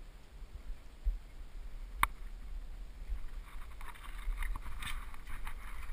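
Rustling and scuffing of shoes and hands on wet leaf litter, moss and rock while climbing down, over a low rumble of camera handling. There is a single sharp knock about two seconds in, and the scuffing grows busier in the second half.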